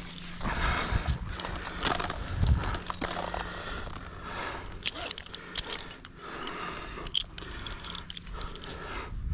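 A tree climber's heavy breathing as he works up the trunk on spurs and a flip line, with clicks and knocks of the climbing gear, a few sharp ones about halfway through.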